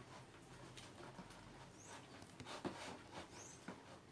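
Faint wet clicks and crackles of homemade soap-and-glue slime being stirred, with a few brief high squeaks.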